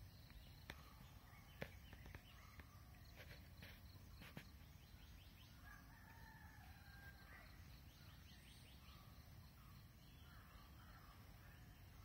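A rooster crowing faintly once, about six seconds in, a drawn-out call lasting a second or two over a quiet background.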